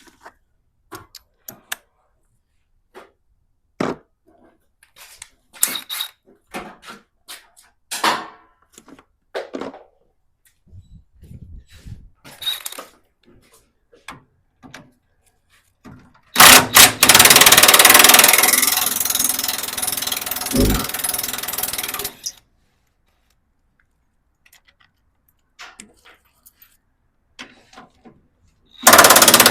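Tools and metal parts clinking and knocking, then an impact wrench runs in one long loud burst of about six seconds, loosening a bolt. It starts up again just before the end.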